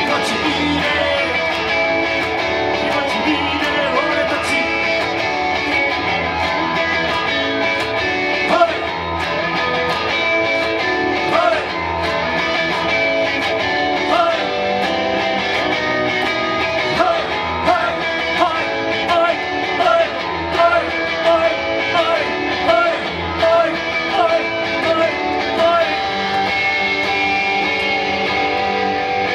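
Live rock music led by guitar: strummed chords under picked lead lines that bend in pitch, with sharper, louder picked notes in the second half.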